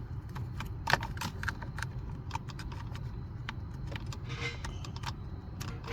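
Scattered light clicks and rattles of plastic electrical connectors and wiring being handled and plugged in, over a steady low hum.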